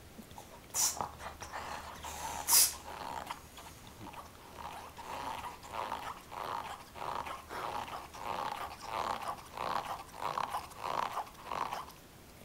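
An English bulldog working at a rubber Kong chew toy: two sharp knocks in the first few seconds, then a rhythmic run of short grunting breaths, about one and a half a second, that stops near the end.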